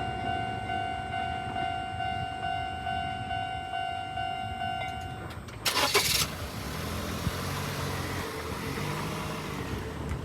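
Japanese railway level-crossing warning alarm ringing a steady repeating tone, cutting off a little over five seconds in now that the train has passed. A short loud rush of noise follows, then the low sound of car engines as road traffic moves off over the crossing.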